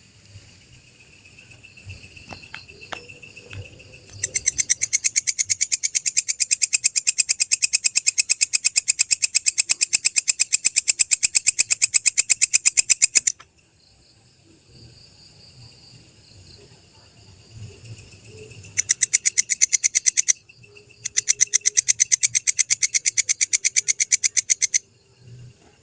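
Walang kecek, the Indonesian katydid used as a master sound for songbirds, calling in long trains of rapid, high, dry clicks: one run of about nine seconds, then two shorter runs in the second half.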